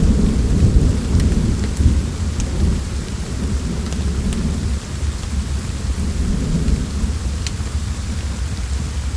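Low rolling thunder over steady rain. The rumble is heaviest in the first couple of seconds, then eases off. A few sharp, isolated crackles from a wood fire sound now and then.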